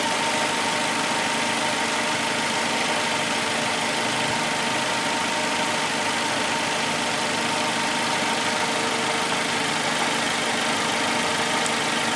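Suzuki four-cylinder engine idling steadily, with a steady whine above it, just after a shorted ignition coil was replaced; it runs a bit better than with the misfire on cylinder 3.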